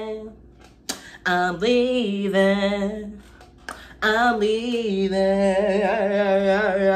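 A man singing a cappella in a high voice, drawing out long notes with vibrato on a line about being over being someone's girlfriend. The phrases break off twice briefly.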